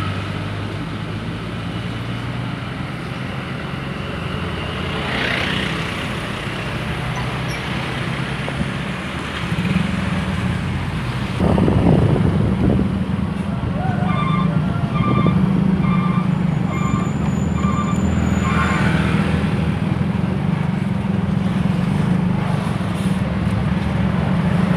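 Heavy truck engines running on the road, the rumble growing louder about halfway through as a truck draws close. Over it, a run of six or seven short, evenly spaced beeps from a vehicle horn or signal.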